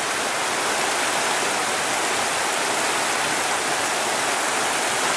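Flowing stream water rushing steadily, an even hiss with no breaks.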